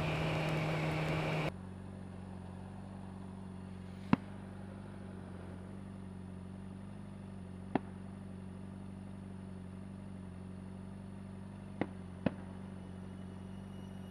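Motorcycle engine heard as a steady low hum. It follows a louder rush of noise that cuts off abruptly about a second and a half in. Four short, sharp clicks stand out, the last two close together.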